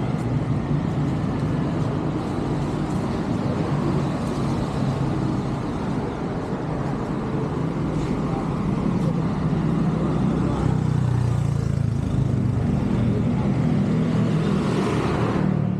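Steady road-traffic noise of a city street, with cars passing on the road.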